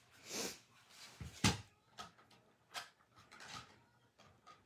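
Cardstock and paper pieces being handled and set down on a cutting mat: a soft paper rustle near the start, a sharp tap about a second and a half in, then a few lighter taps.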